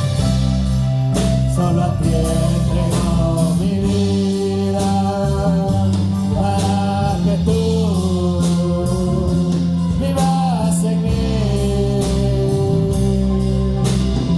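Live worship band music, a slow gospel song with steady bass, drums and cymbals under a sung melody with long held notes.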